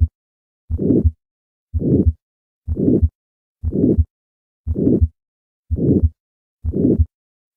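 Heart sounds recorded through a stethoscope diaphragm: a harsh systolic murmur that swells and fades (crescendo-decrescendo) with each heartbeat, about one beat a second. This is the murmur of aortic stenosis.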